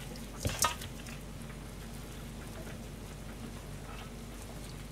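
Hands working filling into soft deep-fried tofu pouches in a stainless steel bowl: faint wet handling and crackle over a steady low hum, with a brief click about half a second in.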